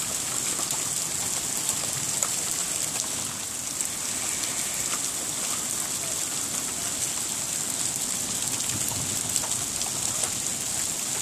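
Hail and rain falling steadily on grass, concrete and mulch: a dense, even patter with many small sharp ticks from individual stones striking.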